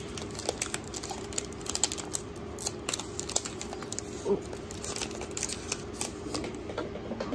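Foil booster-pack wrapper crinkling in the hands as it is peeled open and the cards are slid out: a busy run of quick crackles and ticks.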